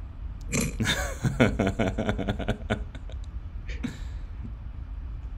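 A man laughing heartily over a video call, a quick run of rhythmic laughs starting about half a second in and lasting about two seconds, then a short breathy laugh near the end.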